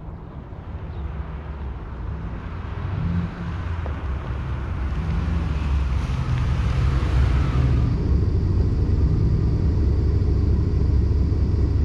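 1992 Cadillac Brougham's 5.0-litre V8 running as the car drives up, growing louder as it approaches. About eight seconds in, the tyre hiss drops away, leaving the steady low engine sound at idle.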